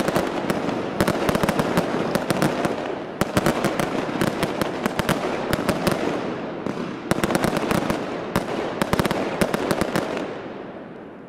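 A fireworks battery's finale: volley after volley of aerial shells bursting in loud, sharp bangs over dense crackling, with white flashbang bursts among them. The bangs thin out and the crackle fades near the end.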